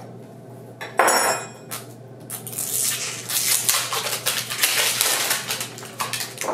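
Perfume box being handled and unwrapped: a sharp clink about a second in, then a few seconds of rustling packaging.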